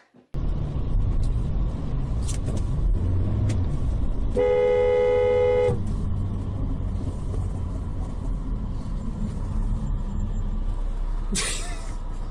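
A car horn sounds once, held for about a second and a half, over the steady low rumble of a car driving. Near the end there is a short, loud burst of noise.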